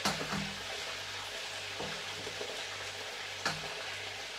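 Food sizzling as it fries in a pot, with a stirring utensil knocking against the pot three times.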